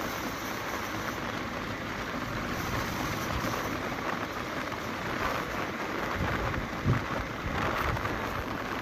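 Wind rushing over the microphone of a moving motorcycle, a steady rough hiss with road and vehicle noise underneath, and a single short thump late on.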